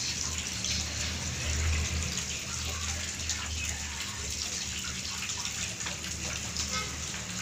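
Water running steadily, with a low steady hum underneath.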